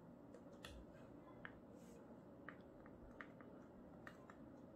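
Near silence with faint, irregular ticks of a stylus tapping and dragging on a tablet screen during handwriting.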